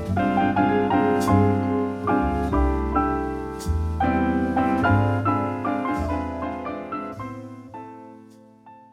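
Background piano music with a low bass line, fading out over the last few seconds.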